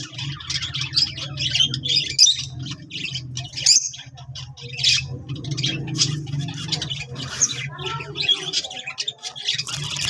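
Lovebirds calling: a dense run of rapid, high chirps and squawks. A steady low hum runs beneath them and stops about eight seconds in.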